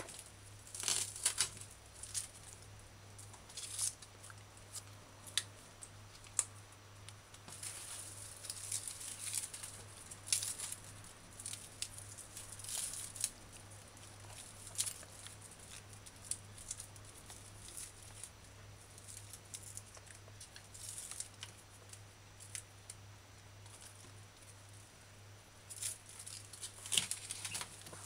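Kitchen knife trimming and peeling scallions on a countertop: scattered short cuts, snaps and rustles as leaf tips are cut off and dead outer leaves stripped away. A faint steady low hum runs underneath.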